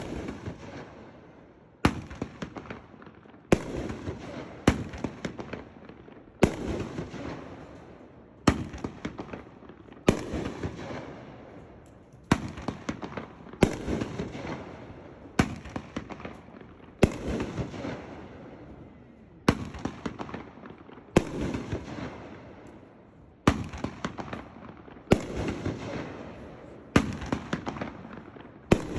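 Sky Bacon "#Boom" consumer fireworks cake firing shot after shot: a sharp report roughly every one to two seconds, each followed by a fading crackle.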